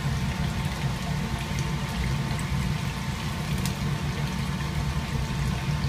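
Steady background hum and hiss with a faint steady high tone, and a few faint clicks.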